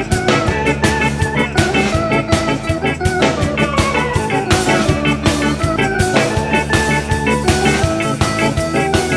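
Background music: a rock track with electric guitar over a steady drum-kit beat.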